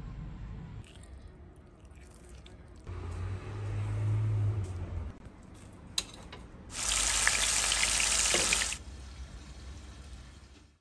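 Meat sizzling loudly for about two seconds past the middle, full of small crackles, then dying down to a faint hiss. Before it come quieter handling sounds: a low hum and a single sharp click.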